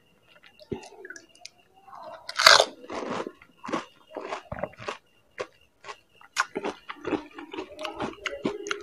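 Crisp fried puri shells of panipuri being bitten and chewed close to the microphone. There is one loud crunch about two and a half seconds in, then a run of smaller crunches and chewing.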